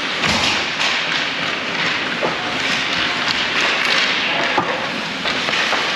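Ice hockey play: steady scraping of skate blades on the ice, broken by repeated clacks and thuds of sticks and puck, some against the boards.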